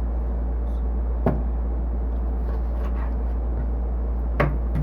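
Two sharp knocks about three seconds apart, such as a knife or utensil striking a cutting board or counter, over a steady low hum.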